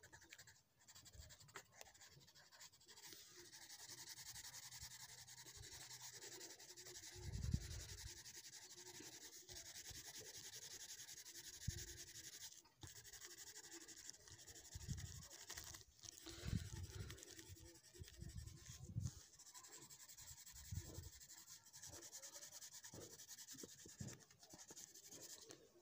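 Coloured pencil rubbing back and forth on paper, a faint steady scratchy shading sound, with a few soft low bumps of the paper and hand being handled.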